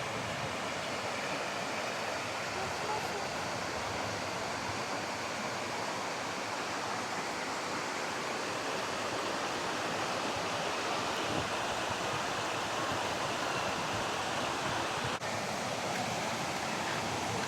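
Steady outdoor rushing noise with no distinct events, broken by a brief dip about fifteen seconds in.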